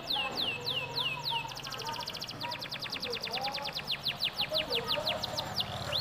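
Domestic canary singing: runs of quick falling whistled notes, broken about a second and a half in by a very fast rolling trill, then more falling notes.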